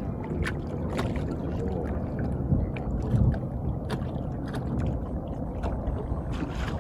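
Small fishing boat under way: a steady low rumble, with water slapping against the hull in short, irregular ticks.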